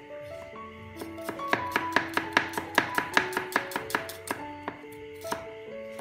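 Cleaver chopping an onion on a wooden chopping board: a fast run of knife strokes, about five a second, for roughly three seconds in the middle, with a few single knocks before and after.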